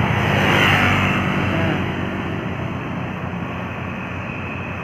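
Tour bus passing at close range: engine and tyre noise swell in the first second, then fade steadily as it pulls away.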